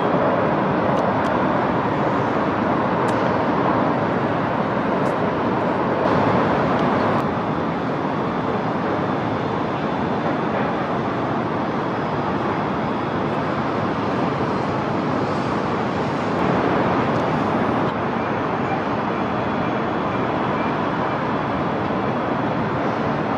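Steady wash of city traffic noise, swelling slightly twice, with a few faint clicks.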